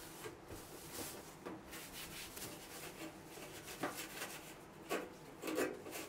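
Sponge scrubbing the stainless-steel inside of a kitchen range hood: a faint rubbing with a few louder strokes.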